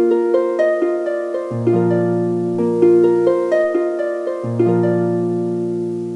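Plucked-string music with a harp-like sound: a gentle run of ringing notes, with low held notes joining twice, fading out at the end.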